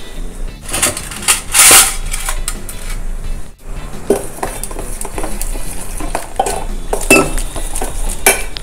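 Stainless-steel bowl, small steel cup and spoon clinking and knocking in a run of separate strikes, with a louder rattle about two seconds in, as spice and water are added to gram flour and stirred into batter.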